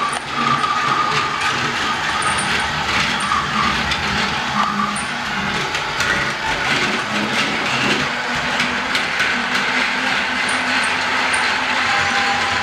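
Battery-powered LEGO Duplo train running along plastic Duplo track: its small electric motor runs steadily, with many quick clicks from the wheels on the track.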